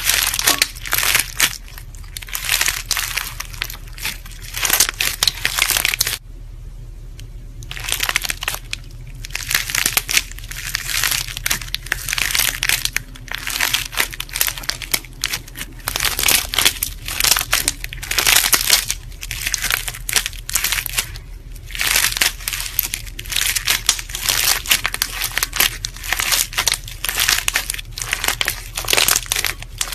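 Clear slime studded with short plastic tube pieces being squeezed and kneaded by hand, crunching and crackling in quick repeated bursts, with a pause about six seconds in. A faint steady low hum sits underneath.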